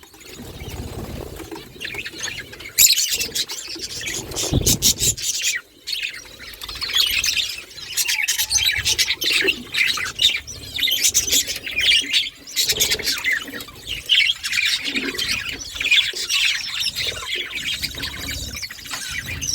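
Budgerigars chattering and chirping in quick, dense bursts of high squawks and warbles. The chatter gets louder about three seconds in and breaks off briefly a little later.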